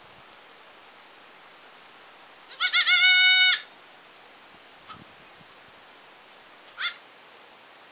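Baby goats bleating: one loud, high-pitched bleat lasting about a second, then a brief, fainter bleat near the end.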